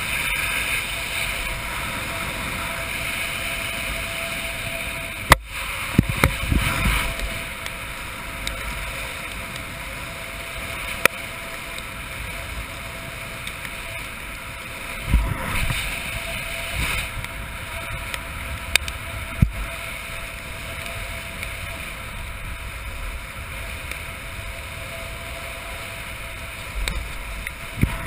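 Steady wind rushing over the jumper's camera microphone during a parachute descent under canopy, with a few sharp clicks scattered through it.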